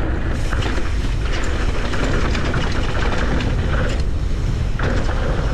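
Mountain bike rolling fast down a dirt downhill trail with heavy wind rumble on the bike-mounted or rider-mounted camera's microphone. Tyre noise runs under it, with scattered rattles and clicks from the bike.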